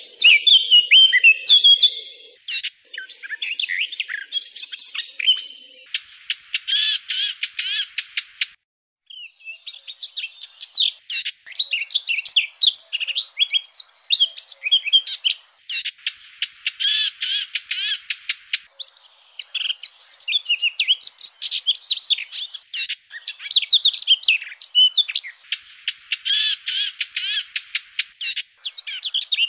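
Eurasian blackcap singing: a long run of fast, high warbled phrases, with several stretches of rapid, dense trilling and one brief break about nine seconds in.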